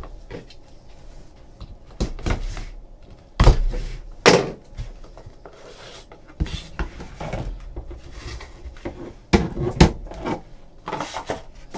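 Cardboard trading-card box being unwrapped and opened by hand: rustling and scraping, with several sharp knocks and taps as the box and its lid meet the table, two of them close together about four seconds in.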